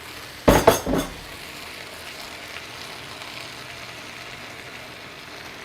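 Chopped capsicum peppers and quartered mushrooms tipped into a hot pan, with a few loud knocks about half a second in as they go in, then steady frying sizzle.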